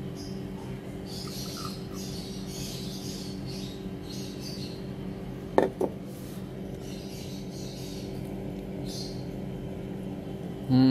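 A steady low hum with intermittent high chirping over it, two sharp clicks just past halfway, and a short loud sound falling in pitch at the very end.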